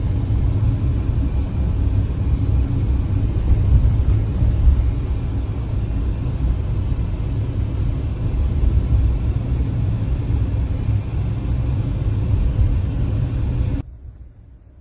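Car driving, a steady low rumble of road and engine noise that cuts off suddenly near the end.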